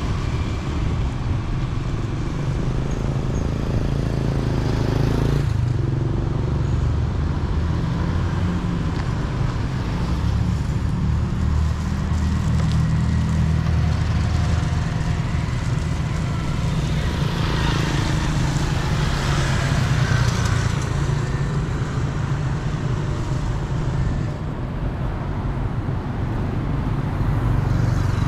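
Street traffic ambience: a steady low rumble of road traffic, with one vehicle passing louder about two-thirds of the way through.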